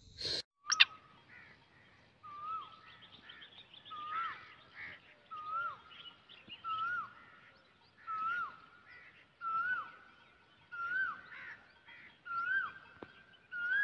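Male black francolin calling: one short hooked call repeated about every second and a half, with fainter chirps between. A sharp click sounds about a second in.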